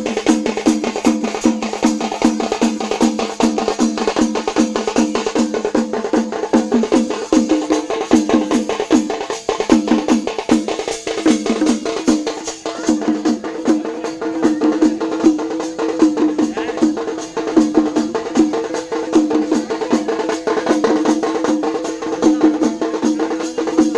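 Live festival music: rapid, dense drumming over a wavering pitched melody that holds steady.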